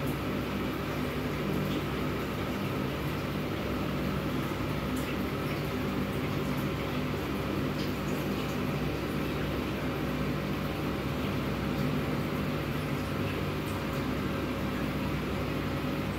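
Steady hum of aquarium equipment, an electric pump running, over a soft watery hiss, with a few faint ticks.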